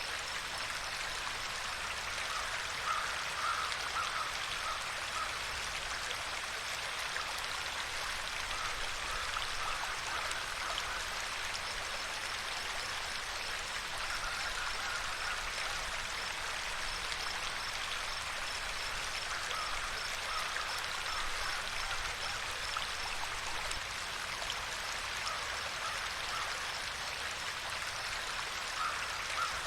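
Running water of a stream, a steady even rush, with an animal's short calls coming in clusters every few seconds.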